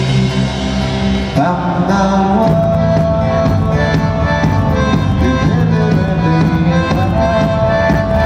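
Rock band playing live through a PA: guitars and held, sustained chords, the harmony shifting about a second and a half in and again near two and a half seconds.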